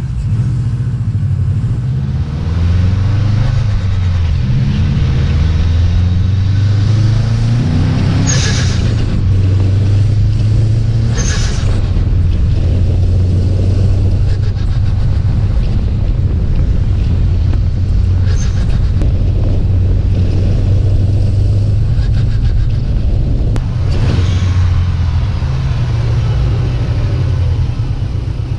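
Subaru WRX STi's turbocharged flat-four engine and exhaust under way, its pitch climbing and dropping in steps over the first several seconds as it pulls through the gears, then settling into a steady low drone. Short hissing bursts of turbo flutter come a few times, the two clearest about eight and eleven seconds in.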